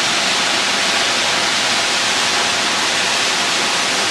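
Waterfall cascading over rocks into a pool: a loud, steady rush of water.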